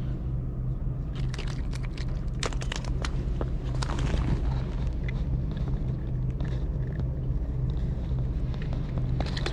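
Steady low rumble of a boat engine running nearby, with scattered light clicks and knocks over it.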